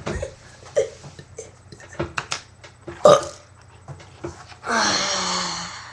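A person's deliberate, loud burp of about a second, its pitch sinking slightly, coming near the end after a few short clicks and small mouth sounds.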